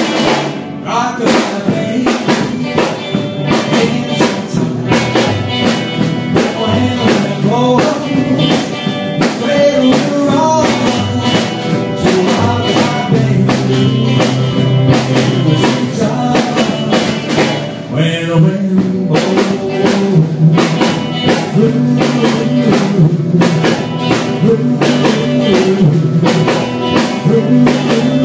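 A small rock and roll band playing live: drum kit, electric guitar and double bass, with the drums hitting steadily throughout and a short drop in the playing about eighteen seconds in.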